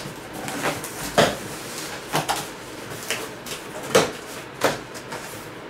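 A cardboard shipping box being handled and opened by hand: several sharp knocks and rustles of packaging, spaced irregularly.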